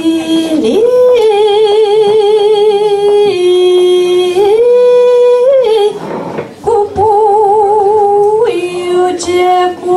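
A woman singing a Romanian doina solo into a microphone: long held notes with a wide vibrato and slides between them, and a short break for breath about six seconds in.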